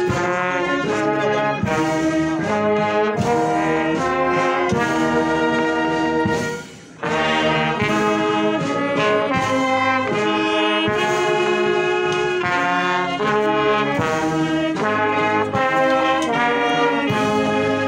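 Military brass band of trumpets and lower brass horns playing music in held chords, with a brief break about six and a half seconds in.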